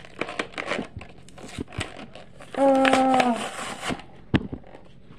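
A toy car's plastic blister pack and cardboard backing being crinkled and torn open by hand, with scattered clicks and crackles. About halfway through, a short hummed voice sound lasting under a second.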